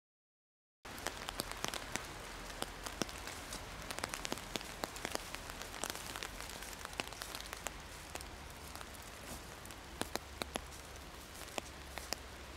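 Light rain falling, a steady hiss with irregular sharp drop ticks close by and a low rumble underneath. It starts abruptly about a second in, out of silence.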